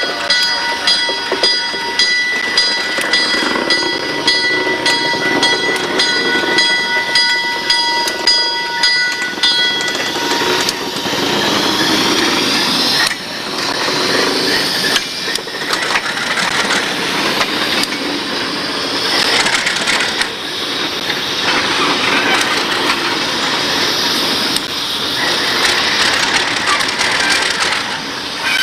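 Alco RS3 diesel locomotive moving past close by, with engine rumble and wheels clattering on the rails. For the first ten seconds or so a bell dings steadily about twice a second, then stops, leaving the rough rolling and rail noise.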